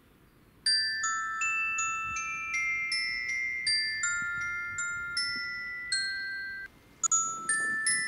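Background music: a melody of bright, bell-like struck notes, like a glockenspiel or chimes, each note ringing on. It starts about a second in, breaks off briefly near the end, then resumes with quicker notes.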